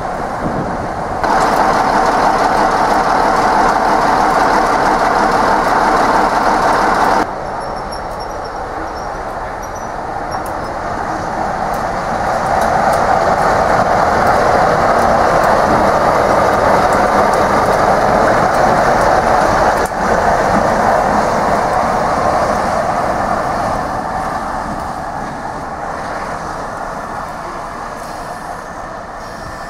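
A British Rail Class 45 'Peak' diesel locomotive, D123, running past with its engine sound. It is loudest around the middle and fades steadily as the locomotive moves away. A short, louder stretch near the start is cut in from another shot.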